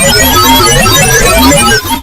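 Loud music made of a dense jumble of many short, overlapping pitched notes, sounding like keyboard or synthesizer tones.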